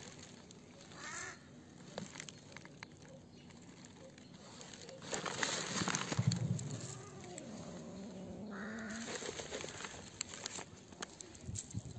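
Stray cats being fed dry food on stone paving: a brief meow about a second in and a longer wavering cat cry about seven seconds in, amid scattered clicks and rustling.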